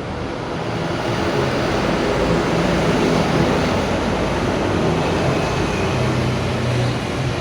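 Vehicle running: a steady rush of road and engine noise with a low hum, swelling a little toward the middle.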